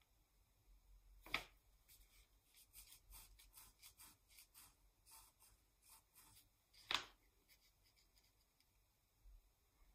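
Ballpoint pen scratching faintly on paper in short, quick strokes, with two sharp taps, one about a second and a half in and one about seven seconds in.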